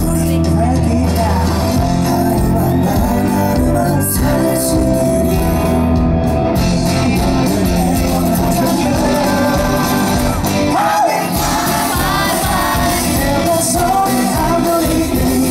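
Live pop-rock band playing: electric guitars, bass guitar and drum kit, with singing and shouts over the top.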